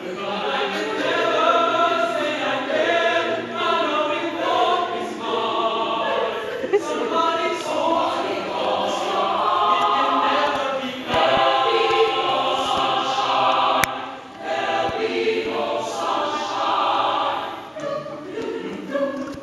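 A group of voices singing together, like a choir, without instruments.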